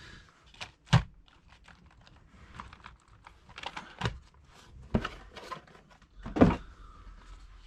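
Scattered clicks, knocks and light rustling as a small plastic RC car and the contents of its box are handled, with sharp knocks about a second in and a louder thump near the end.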